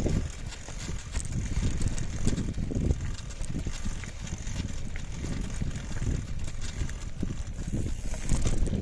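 Mountain bike rolling over a loose gravel trail: tyres crunching on small stones under a steady wind rumble on the microphone.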